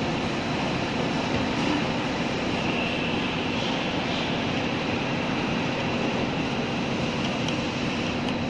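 Steady background machine noise, a low hum under an even hiss, unchanging in level, with a few faint ticks near the end.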